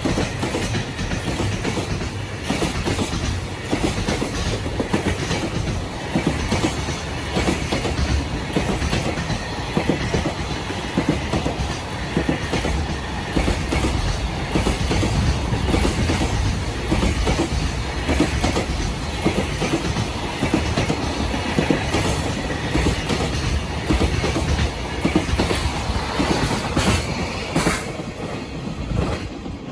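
Container freight train wagons rolling past close by, their wheels clattering over the rail joints in a steady, dense run of clicks.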